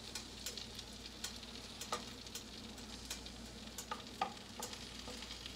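Butter melting and sizzling in a frying pan on medium heat, with scattered sharp pops and ticks.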